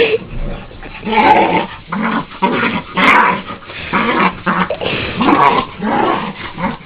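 Plott Hound play-growling: a string of short, rough growls about one a second.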